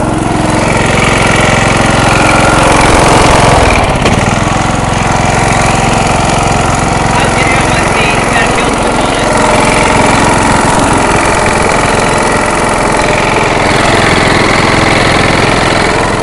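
Engine of an MTD riding lawn mower converted for off-road use, running steadily.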